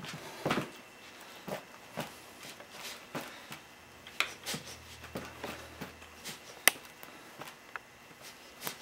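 Faint, irregular taps and scuffs of work boots stepping and pressing on a motorcycle tire, forcing the last of the bead over the rim of a spoked wheel.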